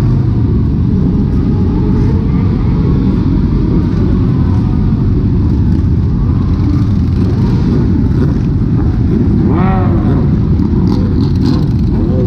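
A large pack of motorcycles riding together, their engines giving a loud, steady low rumble. About ten seconds in, a brief sound rises and falls in pitch over the rumble.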